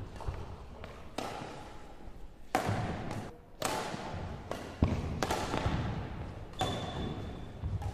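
Cartoon desk-lamp hopping sound effects: a series of about six bouncy thuds, unevenly spaced a second or so apart.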